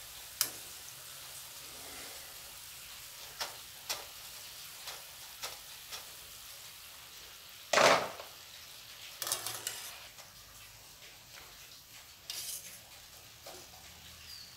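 Oil sizzling steadily as wheat-flour biscuits deep-fry in a kadai, with a wire skimmer clinking against the pan several times. A loud clatter comes about eight seconds in, with smaller clatters a little after.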